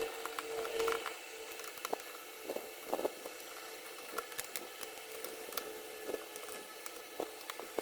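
Small clicks, taps and scrapes of a small screwdriver and hands working on a laptop's plastic bottom cover, scattered irregularly, with a faint steady hum in the first second.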